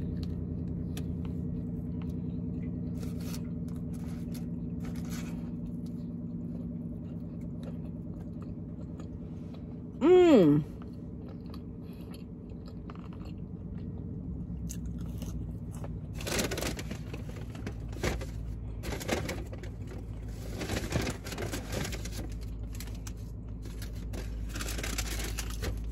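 A person chewing and eating fast food, with crunching and the crackle of paper wrappers and bag, the crackles coming thick from about halfway on, over a steady low hum in a car cabin. About ten seconds in, a short loud vocal sound slides down in pitch.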